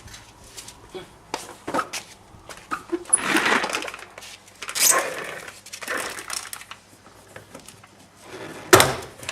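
Plastic car door trim and its clips being pried and worked loose: scattered clicks and scraping, with one sharp loud snap near the end.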